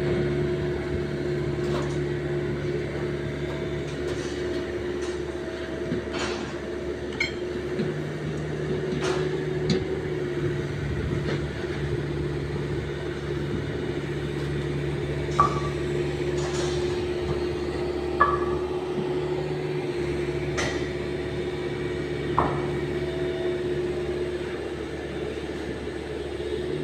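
Excavator engine running steadily, with scattered sharp metallic clanks.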